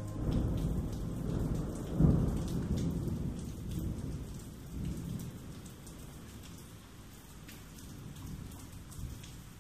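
Thunder rumbling over steady rain, with a sharp crack of thunder about two seconds in that dies away over the next few seconds, leaving the rain and scattered drop ticks.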